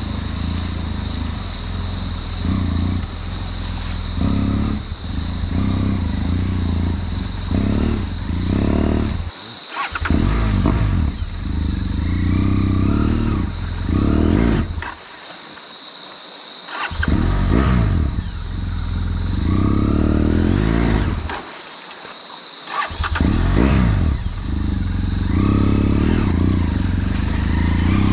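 BMW F800GS Adventure's parallel-twin engine revving up and down in low gear while the motorcycle fords a river. The low engine rumble drops away abruptly three times, then picks up again, over a steady rush of flowing water.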